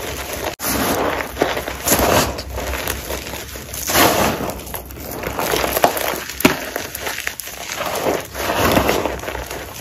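Hands squeezing and raking through crushed gym chalk, powder and small chunks together: soft crunching and rustling that swells and fades again and again, with a few sharper crackles. The sound cuts out for a moment about half a second in.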